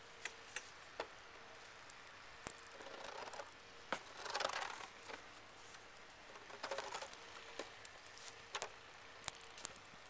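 Snow being scraped and shoved along a roof with a shovel: a few short scraping swells, the loudest about halfway through, among scattered sharp clicks and taps.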